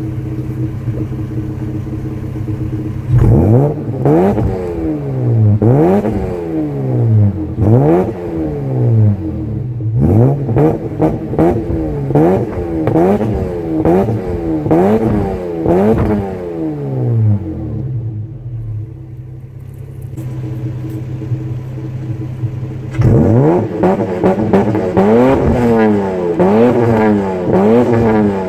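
Toyota Land Cruiser 80's 1FZ-FE 4.5-litre straight-six petrol engine free-revved in neutral. It idles at first, then about three seconds in it is blipped over and over, each rev rising sharply and falling back, about once a second. Near the middle it settles back to idle, then it is blipped quickly again toward the end.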